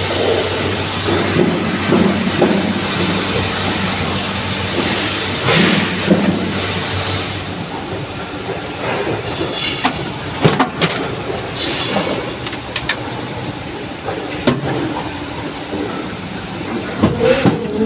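Metalworking machinery producing spare parts, running with a steady hum and a noisy clatter, with sharp metallic knocks at intervals. The hum drops away about halfway through.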